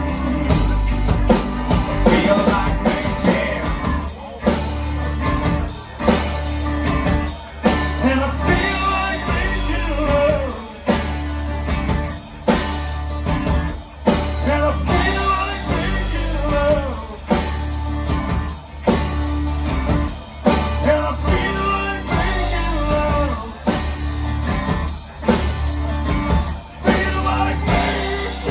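Live rock band playing: a singer over electric guitar and a drum kit keeping a steady beat.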